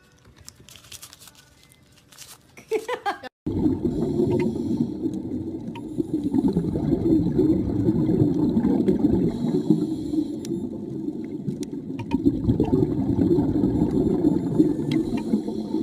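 Muffled rushing and gurgling of water heard underwater, starting suddenly about three and a half seconds in and running on steadily.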